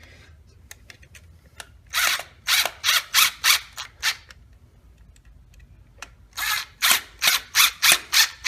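Two runs of short rasping, ratchet-like strokes, about three a second, as the parts of a gun safe's power outlet kit are fitted and tightened together by hand.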